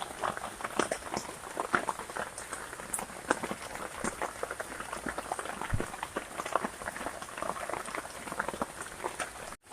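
Heavy rain pattering in dense, irregular drops on the shelter, with a brief drop-out near the end.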